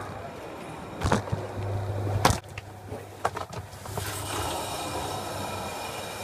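Airport security X-ray conveyor belt running with a low hum, with a couple of sharp knocks and clatters about one and two seconds in as the belt carries items through the machine's curtains.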